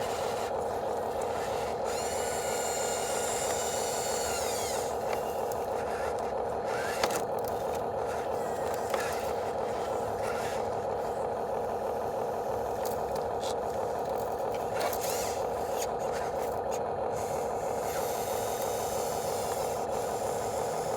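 Radio-controlled construction vehicles working: a steady whir of small electric drive motors and gears, with a higher whine that drops away about four and a half seconds in, plus a few scrapes and short clicks.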